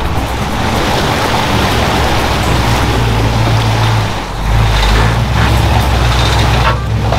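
A pickup truck fording a deep, muddy river: its tires churn and splash through the water in a loud, steady rush, with the engine running low underneath. The rush dips briefly about halfway through.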